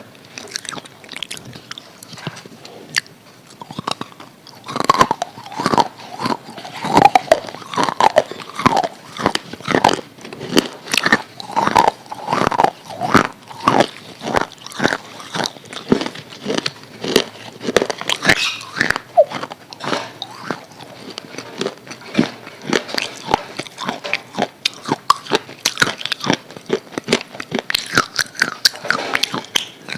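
A person chewing crispy fried chicken close to the microphone, with loud, rapid crunches of the breaded coating, a couple or more a second. The crunching grows louder about four to five seconds in.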